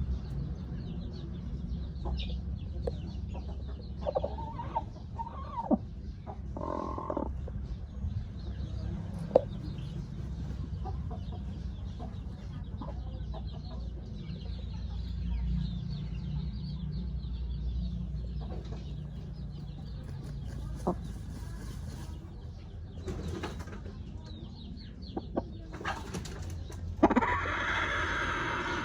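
Chickens clucking now and then over a steady low rumble, with a louder, longer call near the end.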